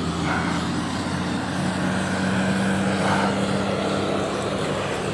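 Steady low drone of an aircraft engine overhead, holding a constant hum with a slight rise in pitch partway through.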